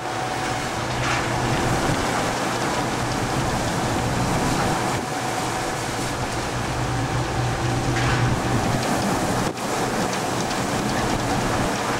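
Fishing boat's engine running steadily with a low hum, under a constant rush of wind and rough sea.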